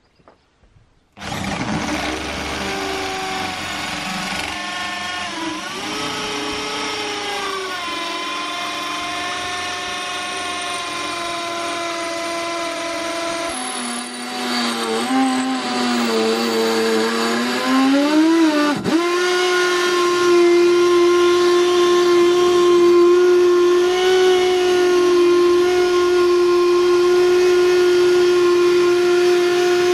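Electric drill spinning a square wooden stick against a clamped chisel, which shaves it round into a dowel: motor whine with the scrape of the blade on the wood. The drill starts about a second in; its pitch wavers and sags as the load changes, dips sharply once about two-thirds through, then holds steady and louder.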